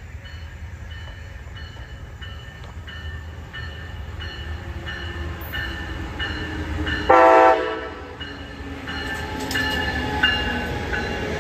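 MARC Siemens SC-44 Charger diesel locomotive approaching and rolling past, with a bell ringing about twice a second throughout. About seven seconds in comes a short horn blast, the loudest sound. The train's running noise grows louder toward the end as the locomotive passes.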